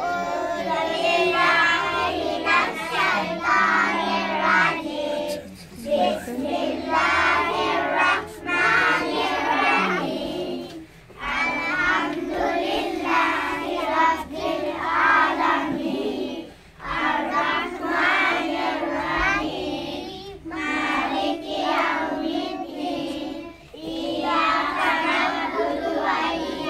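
A group of young children reciting an opening prayer together in a sing-song chant, in unison phrases of a few seconds each with short breaths between.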